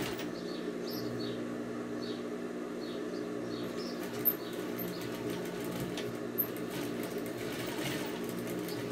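Domestic sewing machine running steadily as it stitches a seam in fabric, with two brief clicks about four and six seconds in.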